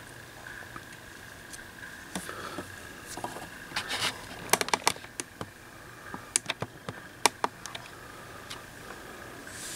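Small plastic and metal probe parts and hand tools set down and tapped on a workbench top: a dozen or so sharp little clicks and clacks from about two to seven and a half seconds in, over a faint steady high tone.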